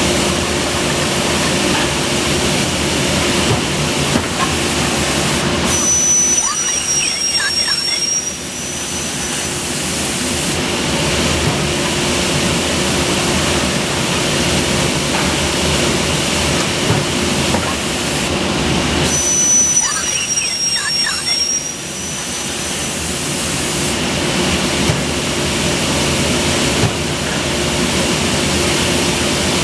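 Automatic-feed carbide-tipped circular saw for aluminium profiles running with a steady hum. Twice, about six and nineteen seconds in, a high whine rises over it for a few seconds and dips slightly in pitch as the blade cuts through the aluminium profile.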